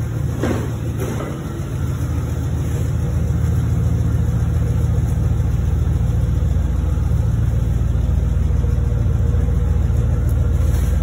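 A car engine idling steadily with a low rumble, getting a little louder over the first few seconds and then holding even.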